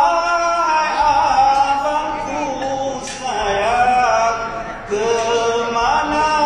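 A man singing a slow Malay song into a microphone, drawing out long notes that waver and bend in pitch, with no clear words.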